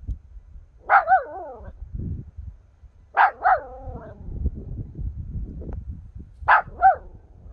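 Papillon puppy barking in three short bouts of high-pitched yappy barks: one bark, then two pairs, the first two bouts trailing off in a falling note.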